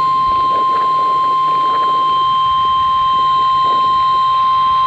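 NOAA Weather Radio's 1050 Hz warning alarm tone: one loud, steady, unbroken tone. It signals that a warning broadcast follows, here a severe thunderstorm warning.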